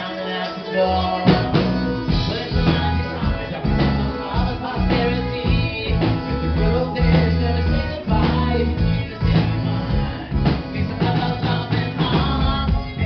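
Live rock band playing, recorded from the audience: keyboards, accordion and drum kit, with the low bass and drums coming in fully about a second in.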